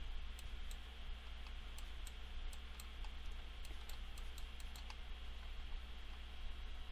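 Scattered, irregular clicks from a computer keyboard and mouse, over a steady low electrical hum and hiss.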